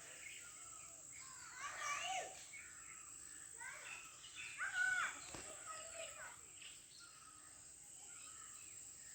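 Birds calling: scattered chirps and short whistled glides, busiest about two seconds in and again around four to five seconds in, over a steady high hiss.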